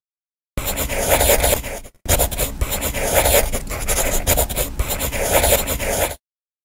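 Dixon Jet Set Plus compact acoustic drum kit being played, with kick, drums and cymbals. The playing starts about half a second in, breaks off briefly just before two seconds, and stops suddenly near the end.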